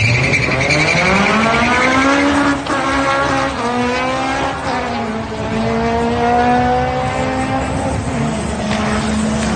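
Drag cars launching off the start line at full throttle, engines revving steeply upward with a brief tyre squeal at the launch. Their pitch dips and climbs again at gear changes about two and a half, five and eight seconds in as they accelerate away down the strip.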